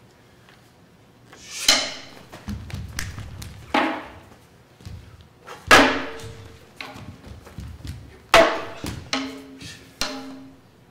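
Hand-held fan drum (uchiwa-daiko) struck about five times, roughly two seconds apart, each stroke ringing briefly before it dies away. Lighter taps and dull thuds fall between the strokes.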